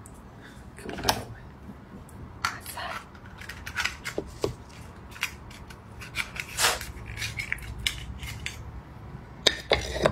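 Oyster shells being pried apart by gloved hands: an irregular run of sharp clicks and scrapes of shell on shell.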